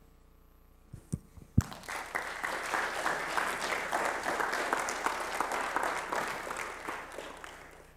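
A few sharp knocks, then an audience applauding: the clapping builds about two seconds in, holds, and fades out near the end.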